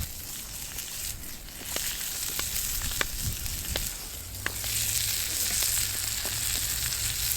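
Beef sizzling as it cooks over a campfire, with a few sharp pops from the fire. The sizzle grows louder about halfway through.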